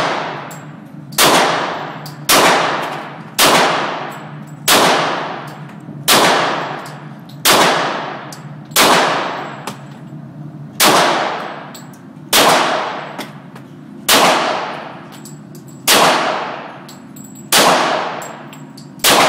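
Glock 23 pistol in .40 S&W fired in a slow, steady string of about thirteen shots, roughly one a second with a slightly longer pause midway. Each shot is followed by a long ringing echo.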